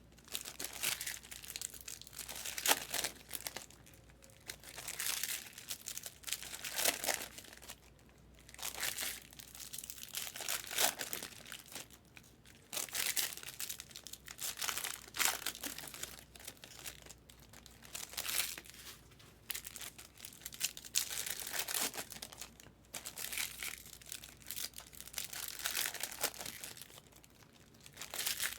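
Plastic or foil wrapping crinkling as it is handled, in irregular crackly bursts every second or so.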